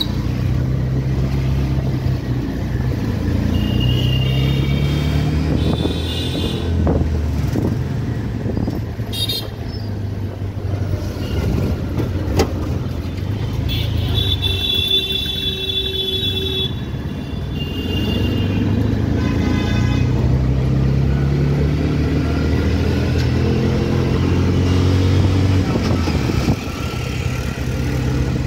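Auto-rickshaw's small engine running steadily while crawling through city traffic, with other vehicles' horns honking several times, including a longer stretch of honking about halfway through.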